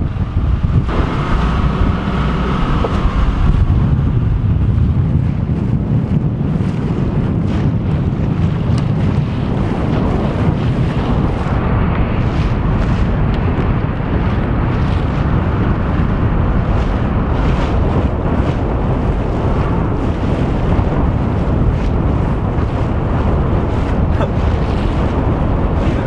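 Loud, steady wind buffeting the microphone on a sailboat under way, with water washing past the hull.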